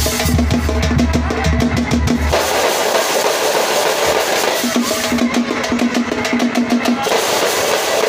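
A street drum group playing loudly: large stick-beaten bass drums and smaller round drums in a fast, unbroken rhythm. The strokes tighten into quick rolls twice, near the start and again past the middle.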